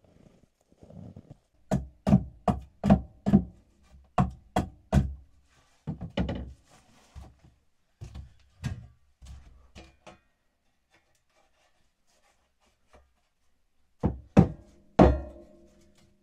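Hatchet striking firewood on a wooden floor, splitting kindling: runs of sharp wooden knocks, about two to three a second, some ringing briefly. There is a pause of a few seconds before the chopping resumes near the end.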